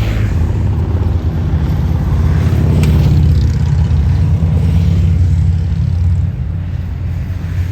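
A large road vehicle's engine running as it passes close by, building to its loudest about three seconds in and easing off near the end.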